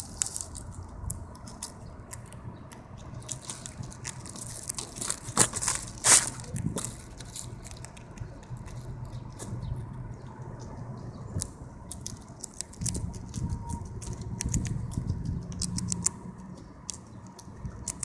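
Grey squirrel gnawing and chewing food held in its paws, close up: irregular crisp clicks and crunches, with two louder snaps about a third of the way in.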